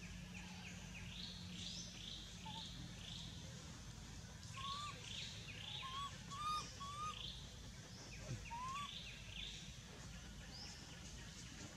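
Birds singing: runs of quick, high sweeping notes that come again every few seconds, over a steady low background hum. Between about five and nine seconds in there are several short, lower squeaks that rise and fall.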